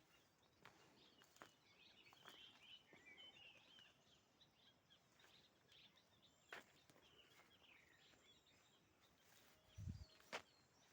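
Faint outdoor birdsong, small birds chirping in quick twittering phrases, with a few faint clicks and a short low thump near the end.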